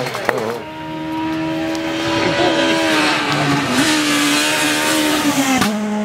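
Rally car engine held at high, steady revs as the car drives hard along the stage, its pitch dipping briefly twice. Near the end a second rally car's engine takes over at a lower steady pitch.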